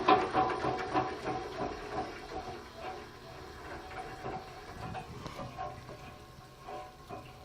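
Sewing machine mechanism running with a rapid, rhythmic clatter, driving a small motor used as a generator; the clatter fades and slows over the first few seconds, leaving a faint, uneven ticking.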